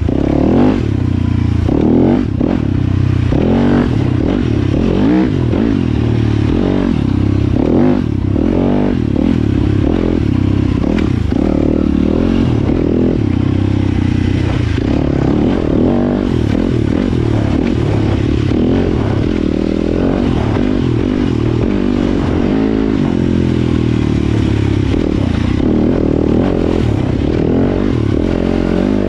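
Dirt bike engine being ridden on single track, its pitch climbing and dropping again and again as the throttle is opened and closed.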